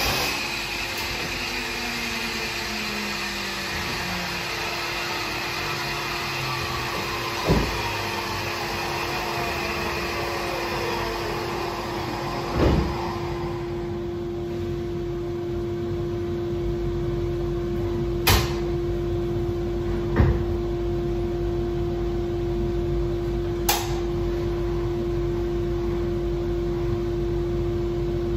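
A woodworking power tool's motor winding down, its whine falling in pitch over the first dozen or so seconds, over a steady machine hum that runs on. There are five sharp knocks as wooden blocks are handled and set at the saw.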